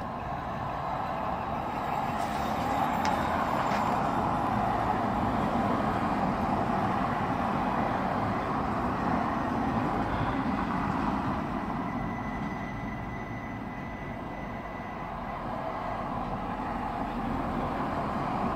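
Car traffic passing on the street, a steady tyre-and-engine rush that swells over the first few seconds, eases off around the middle and builds again near the end as another car goes by.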